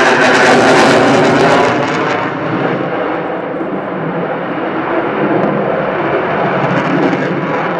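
Belgian F-16 fighter's single Pratt & Whitney F100 turbofan, loud during a display manoeuvre. It is harsh and hissy with a sweeping, phasing quality for the first couple of seconds, then turns duller and slightly quieter as the jet pulls away.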